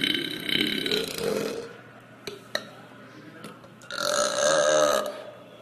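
Women burping on purpose. One loud burp fades out over the first second and a half, and a second long burp with a wavering pitch comes about four seconds in.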